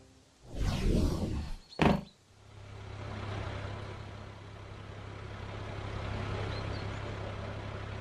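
Cartoon sound effects: a whoosh, then a sharp clink with a brief ring as the pane of glass is taken up. After that comes a cartoon truck's engine running steadily with a low hum.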